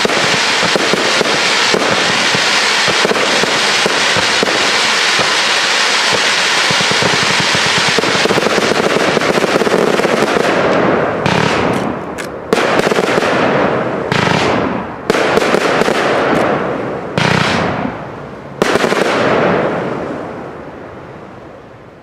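Professional fireworks display, the closing barrage: a dense, continuous run of rapid bangs for about the first ten seconds, then several separate loud bursts about two seconds apart, each tailing off, before the sound dies away near the end.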